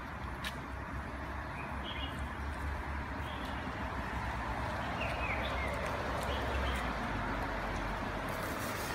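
Electric scooter rolling over brick pavers, its tyre noise growing louder as it comes closer, while its brushless hub motor stays almost silent. A few faint bird chirps and a low rumble lie underneath.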